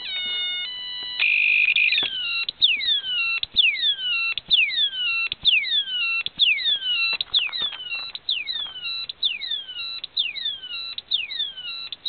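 Homemade transistor siren circuit (two astable multivibrators, clock and tone) sounding through a small loudspeaker. It first gives a brief steady electronic tone, then a repeating falling chirp, each sweep dropping from a high whistle to a lower note, a little under two a second, as the clock modulates the tone. A few faint clicks come in as the crocodile clip makes contact.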